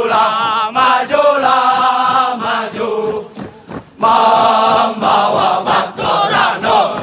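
A large group of male military trainees singing a running cadence together in unison as they jog in formation. The singing breaks off briefly about three seconds in, then the next line starts.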